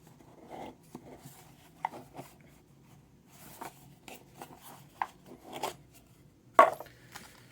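Small cardboard box being opened by hand: scattered scrapes, rubs and light taps, with one sharper knock near the end.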